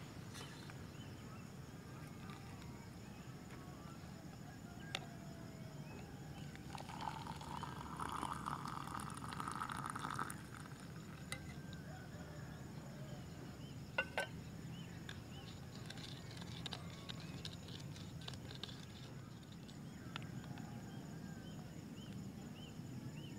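Hot water poured from a camping cook pot into a plastic mug for about three seconds, with a few sharp metal clinks from the pot and spoon before and after, and faint rapid ticking later on.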